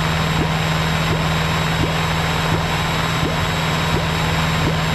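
Piper PA-28's piston engine and propeller droning steadily in cruise, heard inside the cabin.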